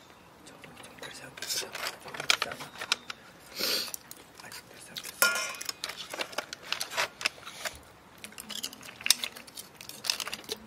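Irregular clicks and clatter of kitchen scissors, chopsticks and shells against a metal hotpot as seafood is cut up and picked out, with brief snatches of voice.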